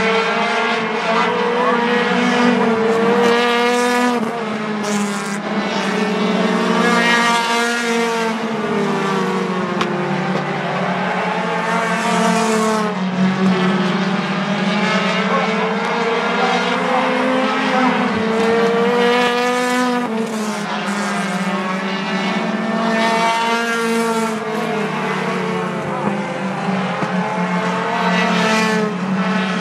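A field of four-cylinder Lightning 4 compact race cars running laps on a short oval. The engines rise in pitch and fall again and again as the cars accelerate down the straights and lift for the turns.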